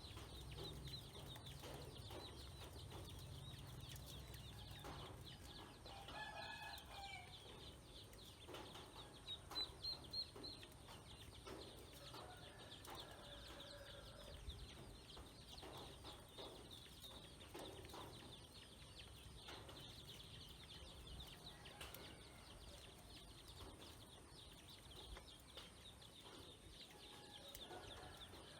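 Faint farmyard poultry calls: scattered clucking and a few longer calls over a continuous high-pitched chirping, with a brief louder run of high notes about ten seconds in.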